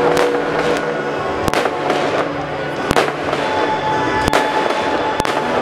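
Fireworks going off: about five sharp bangs, roughly one every second and a half, over a continuous crackle, with music playing underneath.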